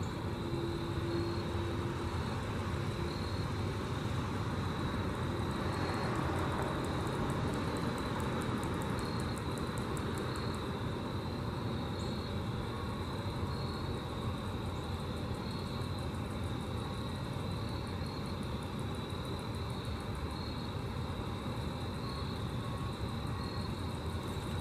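Grasshoppers stridulating: a thin, high chirring made of regular short pulses, with a faster, higher buzz of rapid pulses for several seconds near the middle, over a steady low rumble.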